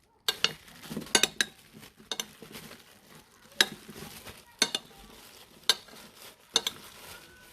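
A kitchen knife cutting apples into eighths, with irregular sharp clicks of the blade.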